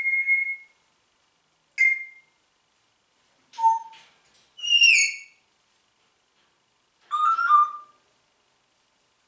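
Congo African grey parrot whistling: about five short, separate whistled calls, one of them a falling whistle about halfway through.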